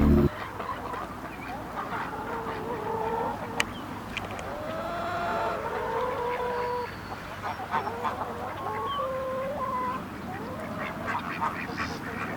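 Farmyard poultry calling over one another, with many short overlapping calls throughout. Background music cuts off just after the start.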